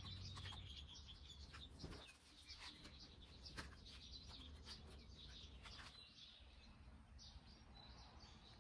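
Faint birds chirping in the background, with a few soft clicks as the plastic plant rack and its labels are handled.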